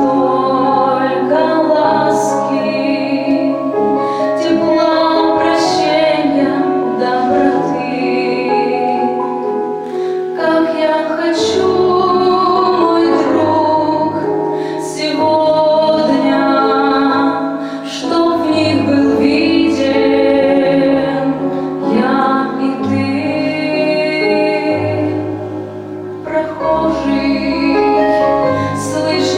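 A woman singing a song over instrumental accompaniment, with long held notes sung with vibrato.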